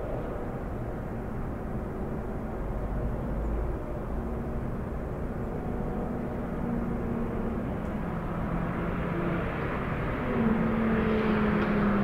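Motorcycle engine running with a steady drone, getting louder and brighter about ten seconds in.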